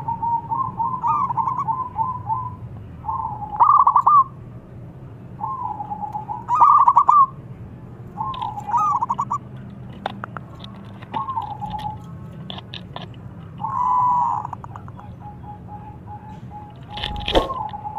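Zebra dove (perkutut) singing its cooing song, a quick stutter of notes ending in a held coo, repeated every two to three seconds. A few sharp clicks come in the middle, and a loud thump near the end.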